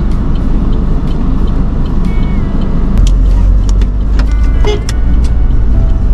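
Car driving on an unpaved dirt road, heard from inside the cabin: a steady low rumble of engine and tyres that grows louder about three seconds in as the car gets moving, with scattered ticks and knocks.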